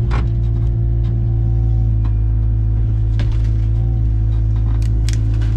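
Engine running steadily with a low rumble and a steady drone, with scattered light clicks and rattles.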